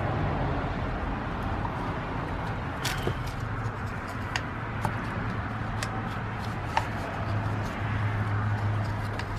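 Steady outdoor background hum, with a few small clicks and taps as the oil filter housing cap and its new O-ring are handled and seated.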